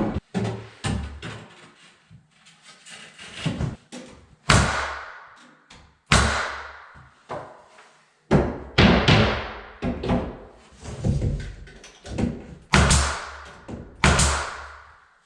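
Loud, irregular knocks and thuds of carpentry work on wooden closet shelving, about a dozen sharp impacts each ringing on briefly in a bare, echoing room.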